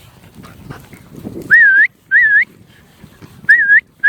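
A dog handler's short whistle commands: four quick, identical whistle notes, each dipping and then rising in pitch, starting about a second and a half in after some faint low rustling.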